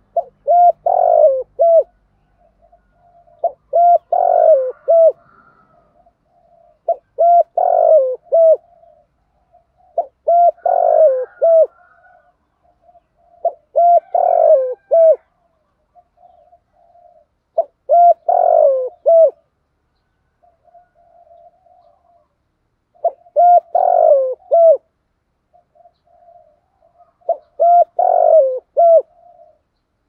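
Spotted dove cooing. A loud phrase of several notes is repeated eight times, about every three to five seconds, with soft quieter coos in between. It is the vigorous 'thúc gù' coo of a caged decoy bird, used to provoke wild doves.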